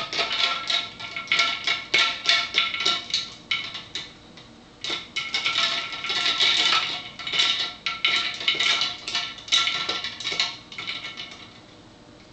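Ice cubes clinking and rattling against a cup as a dial thermometer's metal stem stirs the ice water, in rapid runs of clinks with a pause about four seconds in. The clinking stops near the end.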